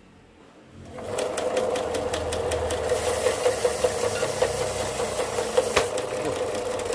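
Pazto electric belt sander started and running, its motor spinning up about a second in and then holding steady, with a rapid run of ticks from the sanding belt. The belt is torn and snagging.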